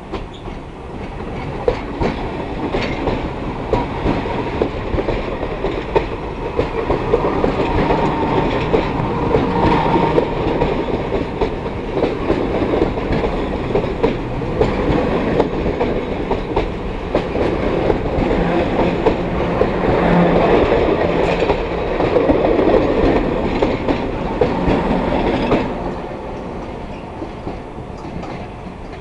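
Toshiba electric train with double-deck coaches rolling past close by, its wheels clacking over the rail joints with a steady stream of sharp clicks. It grows louder over the first couple of seconds as the train comes alongside, then falls away a few seconds before the end as it moves off.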